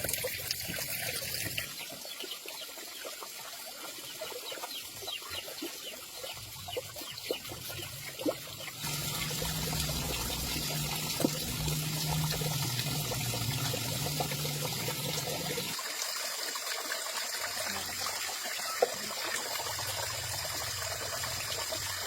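Water trickling and splashing, with scattered small clicks and knocks. The sound changes abruptly a few times.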